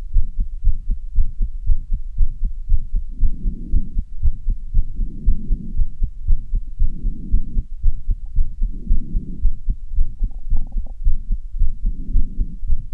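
Fast, pounding human heartbeat after strenuous exercise, a rapid regular train of low thumps. Muffled swells of heavy breathing recur about every two seconds.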